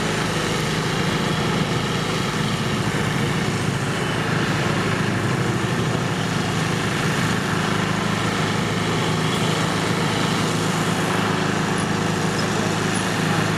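Steady machine hum with a hiss over it, like a small engine running without a break.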